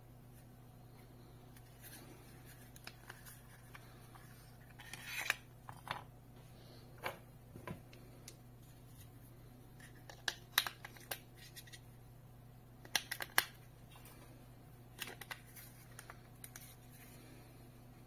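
Sharp plastic clicks and scrapes from a Samsung voice remote being handled while AAA batteries are fitted into its battery compartment. The clicks come in several short clusters.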